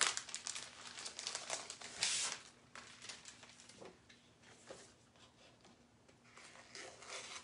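Light rustling and crinkling of a plastic silk-screen transfer sheet and its paper backing being handled. Busiest in the first two seconds, then only faint scattered rustles and small ticks.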